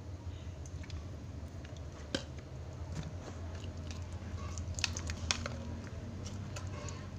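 A metal spoon stirs thickening slime in a glass bowl, giving scattered clicks and taps of the spoon against the glass. The sharpest come about two seconds in and around five seconds in, over a steady low hum.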